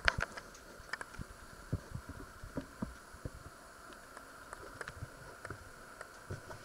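Scattered light clicks and knocks over a faint steady hum.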